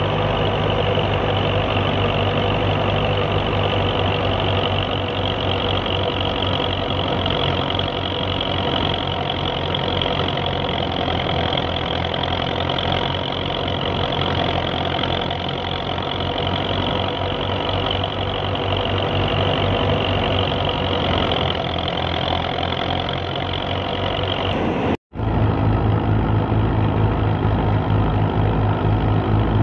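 Belarus tractor's diesel engine running steadily under load as it drives a wheat thresher, with the steady whir of the threshing machine over it. About 25 seconds in the sound drops out for an instant and returns with a heavier, louder engine note.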